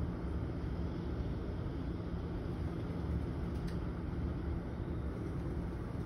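Steady low rumble of outdoor background noise with a faint hum, unchanging throughout.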